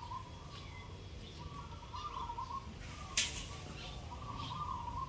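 Birds chirping in repeated short warbling bursts, with a single sharp click about three seconds in.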